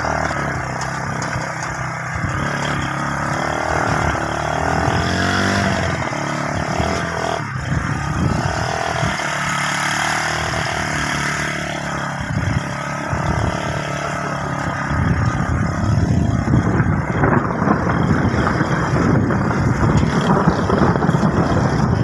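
125 cc motorcycle engine running on the move, its pitch rising and falling with the throttle. It grows louder and rougher in the second half.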